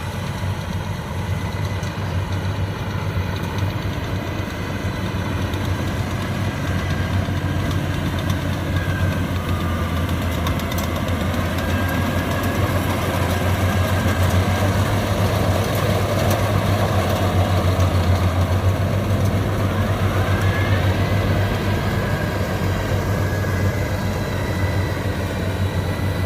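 Rice combine harvesters' diesel engines running steadily under load in a low, continuous drone, swelling a little past the middle as a machine draws closer and easing off near the end.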